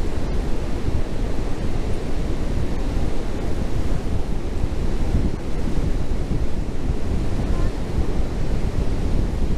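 Steady rushing noise of Niagara Falls' water, with wind buffeting the microphone.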